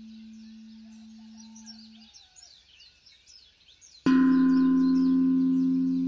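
A struck bell tone rings out about four seconds in and slowly fades, the cue to switch from breathing out to breathing in. Before it, an earlier ringing tone stops about two seconds in. Birds chirp steadily in the background.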